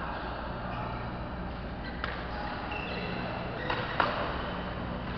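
Badminton rackets striking shuttlecocks: sharp smacks about two seconds in and twice close together near four seconds, the last the loudest, with short high squeaks of court shoes on the mat and a steady low hum underneath.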